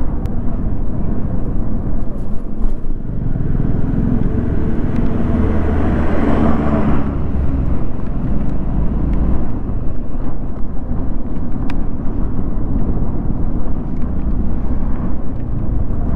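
Riding noise on a motorcycle: steady engine and road rumble with wind on the microphone. It gets louder from about three seconds in and drops back at about seven.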